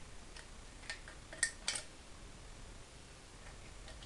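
A few sharp metallic clicks and clinks from a thin sheet-steel ceiling profile being cut and handled with metal snips; the two loudest come close together about a second and a half in.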